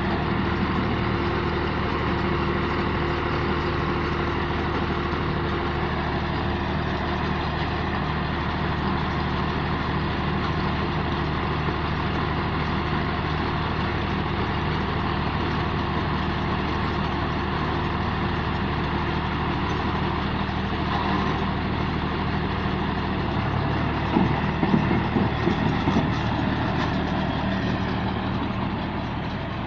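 Rice straw baler machine running steadily, its engine holding an even pitch, with a short burst of clattering knocks about three quarters of the way through.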